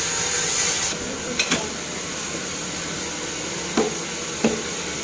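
Teak sawmill machinery running with a loud hiss that stops about a second in, followed by about four sharp knocks on the teak log, two close together and two more spread out.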